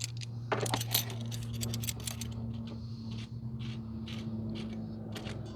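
Scattered light metallic clicks and clinks of vice grips and a spring hose clamp being handled, over a steady low hum.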